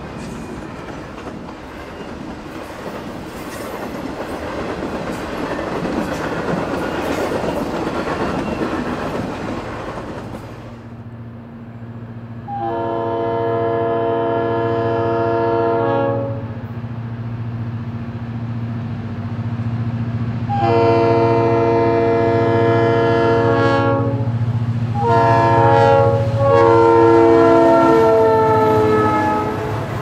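A double-stack container train rolling past, its wheels clattering on the rails. Then a Leslie RS3L three-chime locomotive air horn sounds the long, long, short, long grade-crossing signal over the steady rumble of the approaching diesel locomotives. The last long note drops in pitch as the engine goes by.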